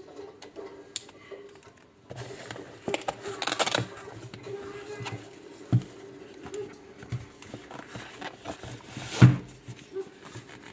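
Handling noise from a Sony HVL-F42AM camera flash being turned over in the hands: rustling and small clicks, a denser scrape a few seconds in, and one sharp thump about nine seconds in, over a faint steady hum.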